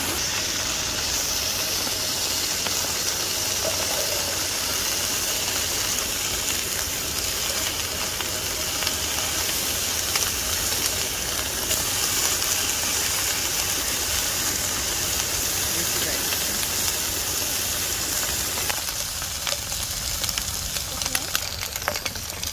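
Steady hissing sizzle of food frying in a pan, with a few sharp clicks near the end.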